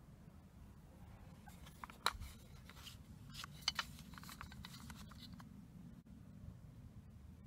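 Clicks and rattles of a hinged plastic cassette case being opened by hand and the compact cassette lifted out. The loudest click comes about two seconds in, then a quick run of clicks at about three and a half seconds and a few softer ones after.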